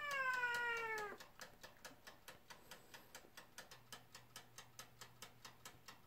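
A cat meows once, a long call falling in pitch and ending about a second in. After it the toaster oven's wind-up dial timer ticks steadily and faintly, several ticks a second, as it counts down.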